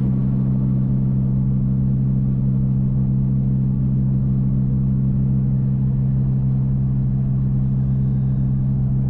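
Twin-turbo Dodge Viper's V10 engine droning at a steady cruising speed, a constant low hum that holds one pitch throughout.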